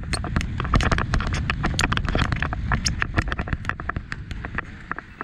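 Mountain bike rattling down a rocky dirt trail: dense, irregular clatter of tyres on loose stones and gravel and of the bike's chain and frame jolting, over a steady low wind rumble on the camera mic.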